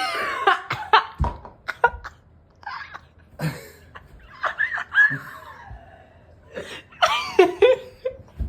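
A man laughing and making short vocal sounds, with a few sharp clicks and a low knock from parts being handled.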